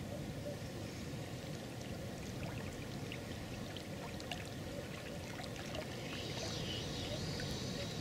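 Gusty wind rumbling on the microphone, with small waves lapping at the bank, and faint ticking as a spinning reel is wound in. A faint high sound joins in over the last two seconds.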